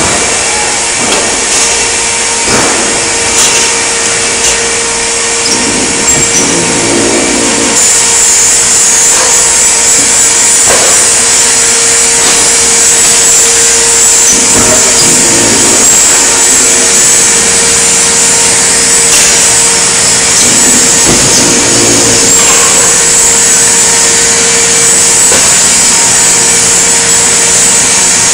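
Loud, steady machinery noise in a metal fabrication shop: a constant motor hum under a wash of noise, with a louder hiss joining about eight seconds in and a few light knocks of metal being handled.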